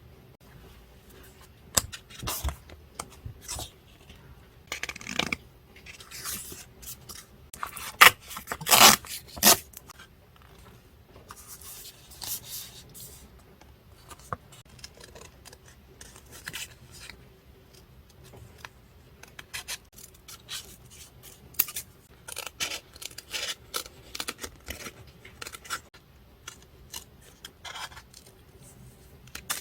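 Paper crafting at close range: scissors snipping and paper being rustled, scraped and torn in short, irregular strokes, loudest about eight to nine and a half seconds in.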